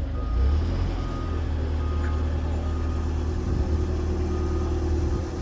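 Heavy vehicle engine running with a steady low rumble, while its backup alarm beeps in short, even tones a little more than once a second.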